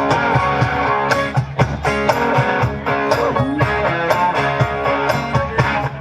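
Live rock band playing an instrumental passage between sung lines: electric guitar chords over bass and a steady drum beat, loud through a large PA at a sound check.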